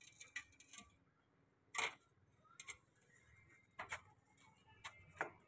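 A loose glass pane clicking and knocking against an iron window frame as it is pushed into place by hand: several sharp ticks, the loudest a little under two seconds in.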